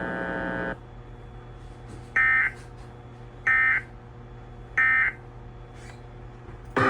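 Emergency Alert System end-of-message signal: three short bursts of digital data screech about 1.3 s apart, over a low steady hum. A brief steady buzzy tone comes before them.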